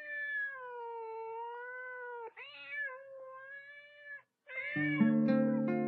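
A cat meowing in long, drawn-out, wavering calls, three in a row. The third is joined about five seconds in by a sustained, ringing musical chord.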